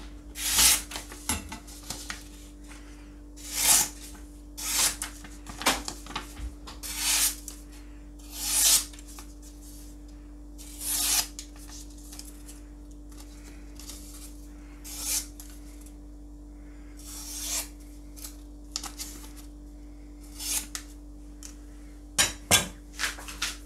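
Sheets of paper being sliced with Japanese nakiri kitchen knives: about a dozen quick swishing cuts, spaced a second or a few seconds apart. Near the end come a few sharp clicks as the knives are set down on the cutting board, over a steady low hum.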